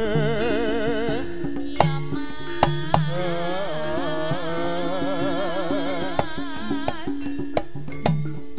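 East Javanese jaranan ensemble music: a lead melody wavering with a wide vibrato over steady gamelan gong tones and sharp kendang drum strokes.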